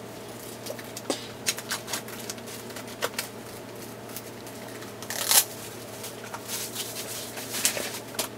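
Paper and card packaging being handled: irregular rustling, sliding and scraping, with a louder scrape about five seconds in.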